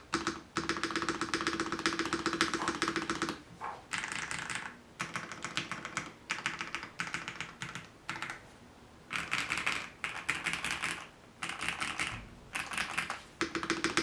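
Fast typing on an S-K75 gasket-mounted mechanical keyboard. It has hand-lubed linear red switches, PBT Cherry-profile keycaps and a polycarbonate plate, and is tape-modded and silicone-dampened. The keystrokes come in rapid bursts of one to three seconds, with short pauses between.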